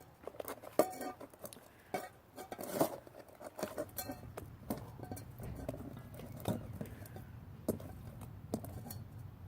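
A spoon knocking and clinking against a bowl in quick, irregular taps while slime is stirred with borax activator.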